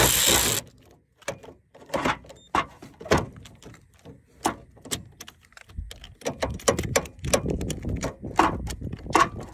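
A power tool's running noise cuts off about half a second in, followed by irregular metallic clicks and clinks of a socket wrench and extension working a bolt while the starter is being removed from a scrapped Renault 4L.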